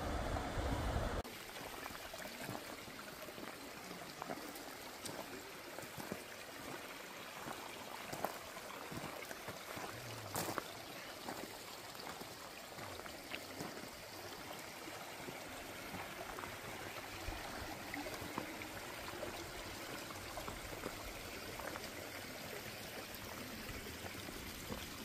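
Mountain stream running over rocks, a steady rushing trickle, with a few faint clicks and crunches of footsteps on a gravel path. A low rumble fills the first second and then cuts off abruptly.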